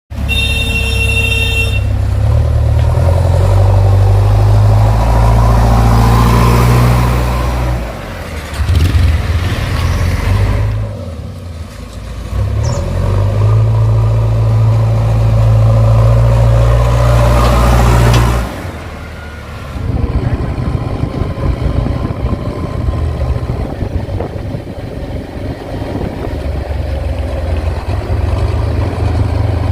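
Diesel engine of a JCB 3DX backhoe loader revving up hard under load for several seconds at a time, twice, dropping back in between, then running at a lower, uneven speed for the last third.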